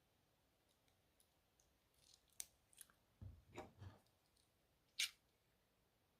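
Near silence broken by a few faint clicks and light knocks of small metal parts being handled: a screwdriver working on a Zippo lighter. There is a short run of knocks a little past the middle, and the sharpest click comes near the end.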